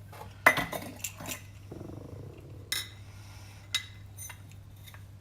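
A measuring cup and utensil clinking and knocking while scooping salt: a handful of separate clicks about a second apart, with a short scrape near the middle.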